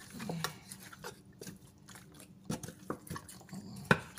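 Raw beef ribs being turned over in a glass baking dish: wet, sticky handling of the meat with scattered clicks and knocks of a wooden spatula against the dish, the sharpest knock near the end.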